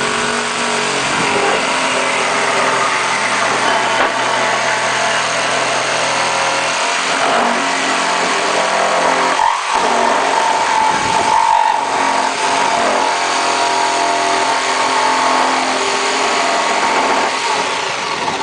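Jigsaw with a wood blade running at high speed, cutting through pallet wood. It runs steadily, with a brief dip about halfway through.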